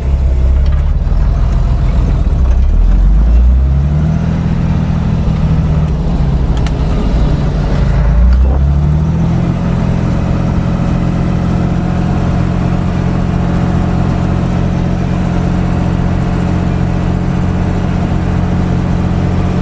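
Fendt Favorit 611 LSA Turbomatik tractor's diesel engine running hard. The revs rise about four seconds in, sag briefly near eight seconds, climb again, then hold steady.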